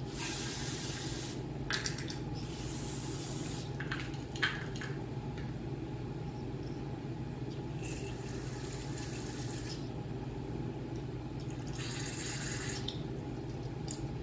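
Aerosol brake cleaner sprayed in four short hissing bursts, each about a second long, to blow out a carburetor and its float bowl. A few small clicks come between the bursts, over a steady low hum.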